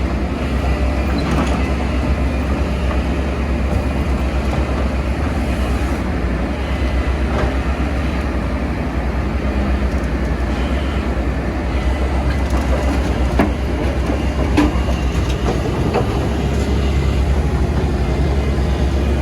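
Excavator's diesel engine running with a steady low rumble as the machine moves, with a few sharp metallic knocks about two-thirds of the way through.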